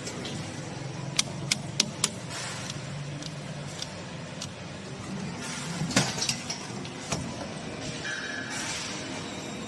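Sharp clicks of breakers and switches being flipped in a packing machine's electrical cabinet during a reboot, over a steady low hum: four quick clicks, then a louder cluster about six seconds in. A short steady tone sounds near the end.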